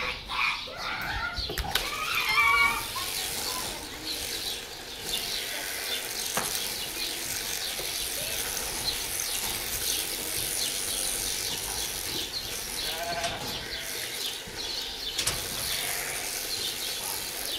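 Sheep bleating, once about two seconds in and again later, over a steady high hiss.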